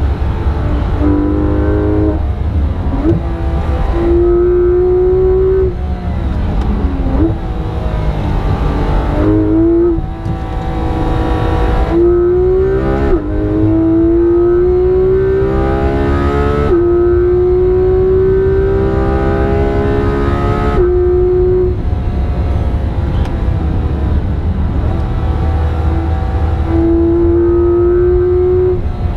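Porsche 991.2 GT3 RS's 4.0-litre naturally aspirated flat-six at full throttle, heard inside the cabin. The pitch climbs steadily through each gear and drops sharply at several quick PDK upshifts, with brief lifts for corners, over a heavy low road and tyre rumble.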